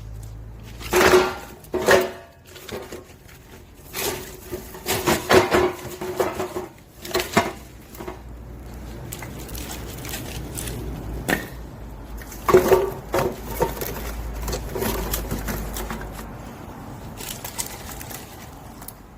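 Split firewood logs knocking and clattering as they are loaded a few at a time into a galvanized sheet-metal packing frame lined with an onion-net sack, several hits leaving a brief metallic ring. The knocks come in clusters, with quieter gaps between handfuls.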